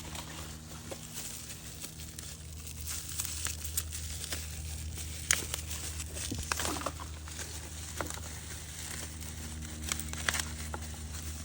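Packaging being unwrapped by hand: crinkling and tearing with scattered sharp clicks and handling knocks, loudest about five seconds in, over a steady low hum.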